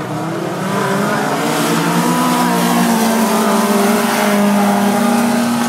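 Racing car engines running hard as cars lap a dirt track, the engine note fairly steady and swelling louder about a second in as the cars come closer.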